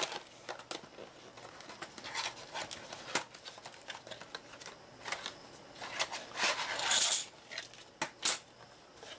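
Small paperboard game box being opened and emptied by hand: scattered clicks, taps and rustles of card flaps and plastic pieces, with a longer rustle about seven seconds in.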